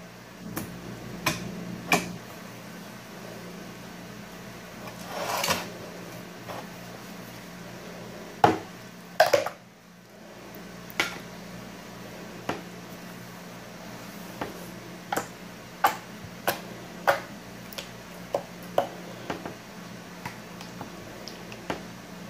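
Slime being pressed, squeezed and poked by hand on a tabletop: scattered short clicks and pops, one every second or two, over a steady low hum.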